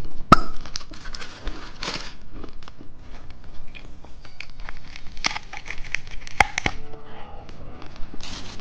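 A plastic candy wrapper crinkling and tearing, with scattered sharp clicks and crackles and a few louder snaps.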